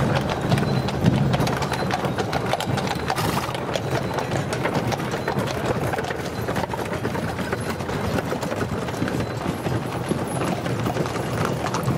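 Many horse hooves clip-clopping irregularly on cobblestones as teams of carriage horses pass one after another, with the rumble of carriage wheels rolling over the stones.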